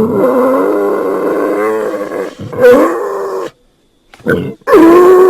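A man's voice making drawn-out, wavering pig-like noises: one long call lasting about three and a half seconds, then after a short break a brief call and another long one starting near the end.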